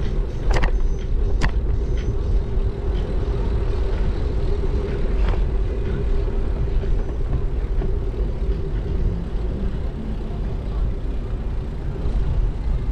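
Wind noise buffeting a GoPro's microphone while riding a bicycle, with a steady hum underneath. Two sharp clicks come near the start.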